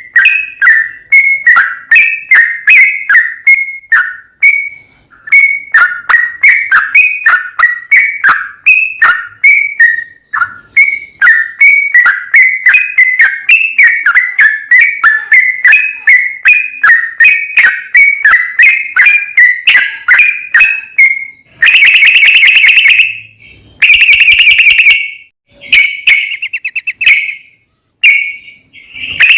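Yellow-vented bulbul (trucukan) song: a quick run of short, bubbly whistled notes, several a second. About 21 seconds in it changes to long, rapid buzzing trills that come in bursts of a second or two.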